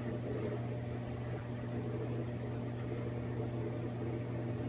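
Microwave oven running with a steady, even hum. It started itself without anyone pressing start, a malfunction.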